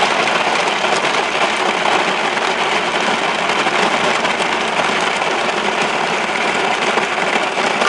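Margaritaville frozen concoction maker running steadily on its one-button cycle, its motor grinding ice for a blended drink.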